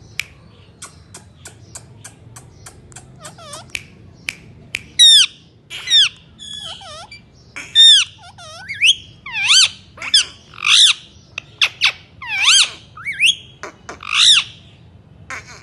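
Parrot making a string of quick clicks, then loud bending squawking calls from about five seconds in, repeated every half second to a second.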